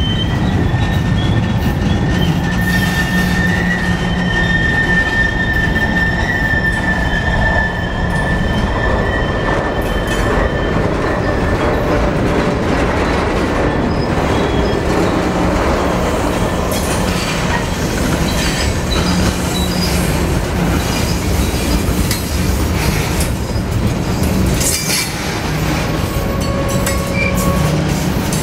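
Freight cars rolling past close by: a steady rumble of steel wheels on rail. High wheel squeal rings out over roughly the first ten seconds, and a few sharp knocks come near the end.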